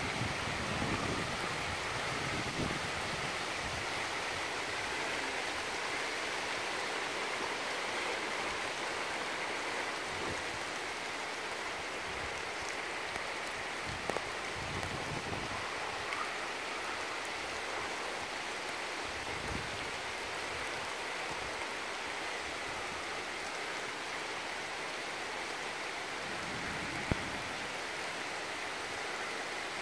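Steady outdoor hiss of woodland ambience, with scattered low bumps on the microphone and two sharp clicks, one about halfway through and one near the end.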